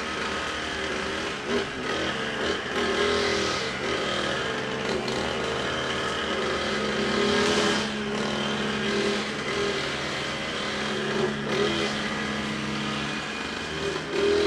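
Petrol brush cutter (string trimmer) engine running continuously, its pitch rising and falling as it revs up and eases off while cutting.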